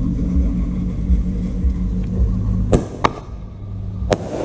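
A car engine idling with a steady low hum. About three seconds in, a ground firework gives two sharp pops a third of a second apart, then a third pop about a second later.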